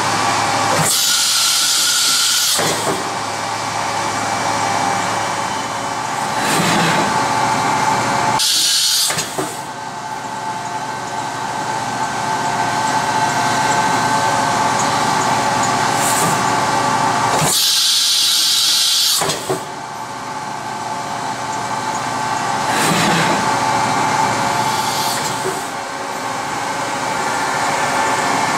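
Topper TMV-400 CNC drilling and tapping center running: a steady machine whine made of several held tones. It is broken twice by loud hissing air blasts about two seconds long, one about a second in and one past the middle, with fainter hisses between.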